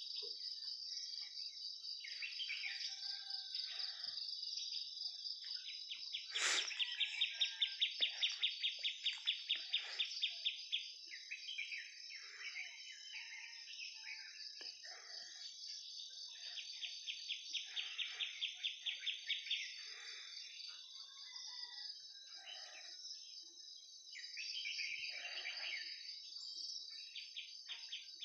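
Outdoor wildlife chorus: a steady, high-pitched drone of insects, with scattered bird calls over it. Twice a fast, even pulsing trill runs for a few seconds, and there is one sharp click about six seconds in.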